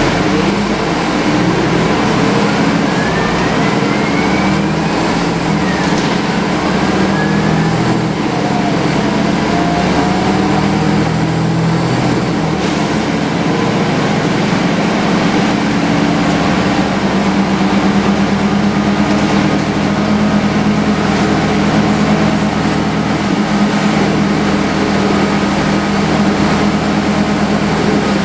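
Inside a MAN 11.220 midibus under way: a loud, steady air-conditioning unit over the diesel engine, whose note changes in the first half and then holds steady. A faint whine from the ZF automatic gearbox rises in pitch twice in the first several seconds.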